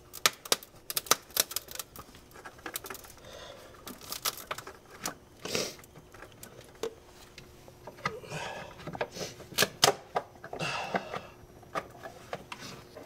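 Irregular sharp plastic clicks and knocks, with short bouts of scraping and rustling, as an old, brittle plastic PCV valve and its breather hoses are pried and twisted loose by hand on a BMW M52TU engine.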